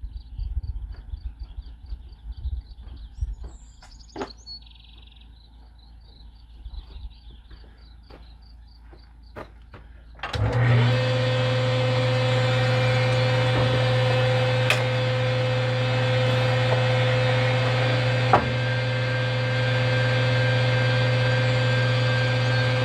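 Scattered light knocks and handling noise, then an electric woodworking power tool motor starts suddenly about ten seconds in and runs steadily with a strong low hum and a steady whine, with a single sharp knock partway through.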